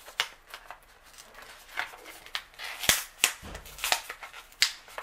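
Plastic blister packaging being pried and bent open from its cardboard backing card: a series of sharp plastic cracks and snaps, the loudest about three seconds in.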